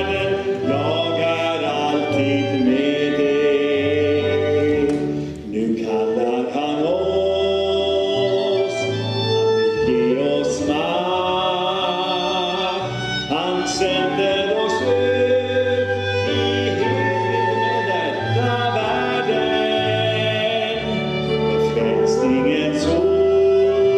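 Sung song with flute, violin and bass accompaniment; the bass plays steady low notes under the melody.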